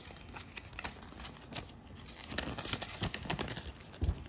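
A folded paper instruction leaflet being unfolded and handled: soft, scattered paper rustles and crinkles, with a low bump about four seconds in.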